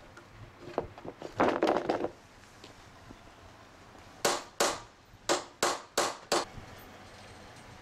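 A heavy timber beam knocks and thuds as it is turned over, then a hammer strikes a punch on a steel angle six times in quick groups, each a sharp metal tap with a short ring, marking where holes will be drilled.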